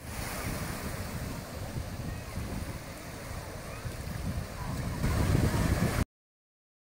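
Sea surf washing in the shallows with wind rumbling on the microphone, a little louder near the end before it cuts off suddenly.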